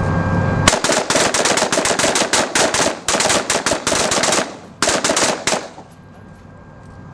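Rifles on a firing line shooting in quick, irregular succession, some two dozen shots over about five seconds. There is a brief pause about four and a half seconds in, and the firing stops near the end.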